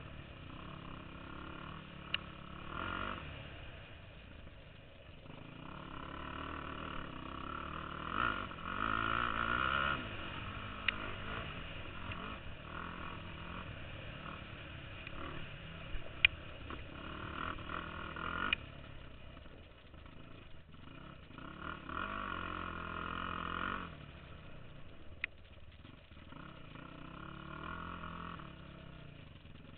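Yamaha YFZ450 quad's single-cylinder four-stroke engine revving up and easing off in repeated surges while riding, with a few sharp clicks along the way.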